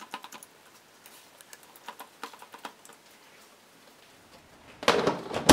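Light taps of a hand on oiled dough inside a plastic food container, then near the end a burst of sharp plastic clatter and clicks as the airtight lid is pressed down onto the box.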